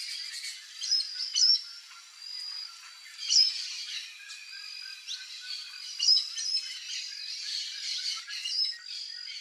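Several birds chirping and calling at once, a mix of short chirps and high held notes, with a few loud, sharp calls standing out about a second and a half, three and a half and six seconds in.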